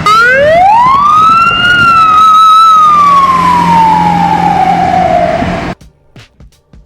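A single emergency-vehicle siren wail: it rises steeply in pitch over about a second and a half, holds near the top, then falls slowly and cuts off suddenly near the end.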